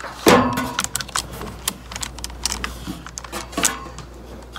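Clicks, rattles and light knocks from a Craftsman electric chainsaw being handled: the saw chain clinking on its bar and the plastic housing knocking, with one louder knock about a quarter second in.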